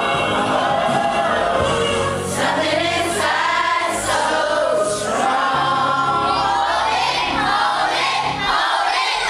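A large group of children and adults singing together to music, over a steady low bass line that drops out near the end.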